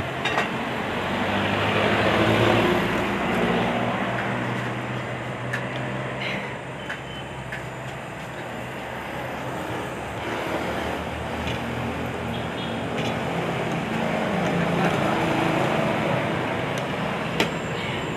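Road traffic running past: vehicle engines rise and fade, swelling about two seconds in and again near the end, with a few sharp clicks on top.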